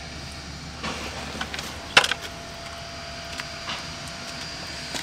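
A few short knocks and clicks over a steady low hum, the loudest knock about two seconds in, followed by a faint steady tone.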